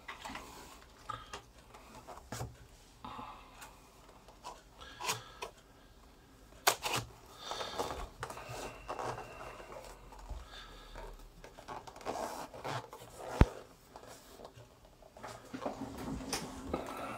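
Cardboard box and plastic blister pack being handled and turned over on a tabletop: scattered rubbing, light scrapes and clicks, with a single sharp click about two-thirds of the way through as the loudest sound.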